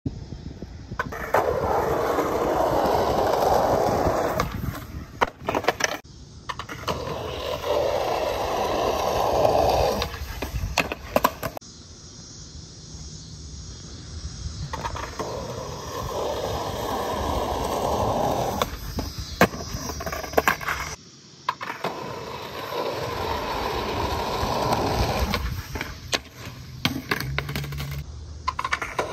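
Skateboard wheels rolling over rough asphalt, then the sharp clack of the tail popping and the board slapping and clattering on the pavement as a heelflip is tried. This happens about four times, each run a few seconds of rolling before the clacks.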